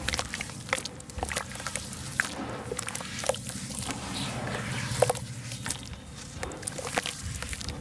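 Hands squishing and swishing through a basin of watery sand-and-cement slurry: continuous wet sloshing and squelching, broken by many small splats, with one sharper splat about five seconds in.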